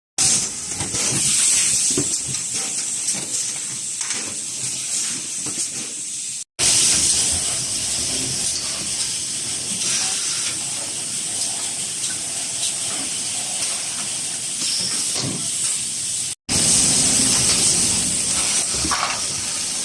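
Bottled-water production line machinery running: a steady high hiss like compressed air, with scattered faint clicks and clatter. It comes in three stretches, cutting out abruptly for an instant twice.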